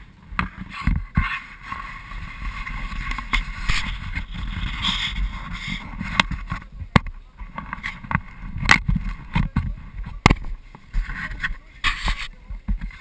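Rumbling wind and handling noise on an action camera's microphone, broken by a string of sharp knocks and clicks as the camera is moved about.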